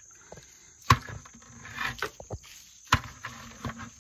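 Two sharp knocks, one about a second in and one about three seconds in, with a few lighter clicks and a brief rustle between them.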